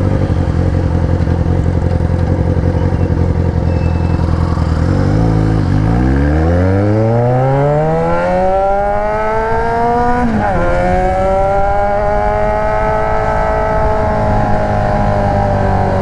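Yamaha XJ6's 600 cc inline-four engine through a loud aftermarket Atalla exhaust, riding at steady revs, then accelerating with a long rise in pitch from about six seconds in. There is a short dip in revs about ten seconds in, after which it holds higher revs.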